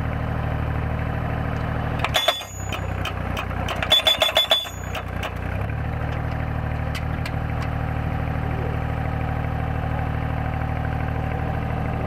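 The engine of a tracked solar pile driver runs steadily. Two short spells of rapid, ringing metallic hammer blows come about two seconds in and again around four seconds in, each under a second long: the hammer is driving a steel solar-panel post.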